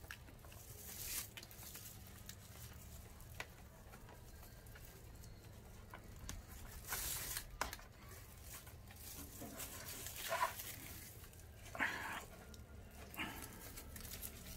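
Faint rustling and scraping of rope being threaded and pulled through the side of a plant basket, in short bursts over a low steady hum, with two brief squeaks about two-thirds of the way in.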